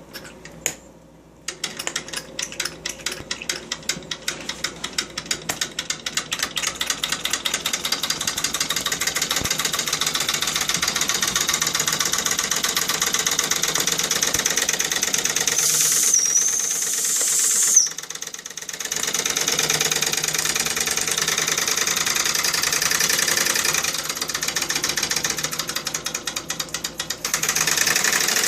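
Vintage Jensen toy steam engine starting slowly, then running with a fast, even chuffing and mechanical clatter. About halfway it sounds its steam whistle, a high tone of about two seconds, which vents boiler pressure. Near the end it runs louder as the pressure valve is adjusted to change its speed.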